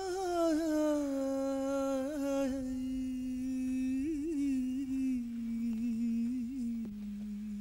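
A single voice humming a long, wordless held note, wavering in small melodic turns and sinking to a lower note near the end.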